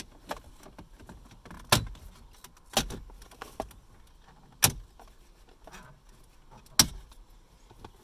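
Plastic retaining clips of a truck's dash trim bezel snapping loose as the bezel is pried and pulled off: four sharp snaps spread over several seconds, with lighter plastic clicks and rattles between.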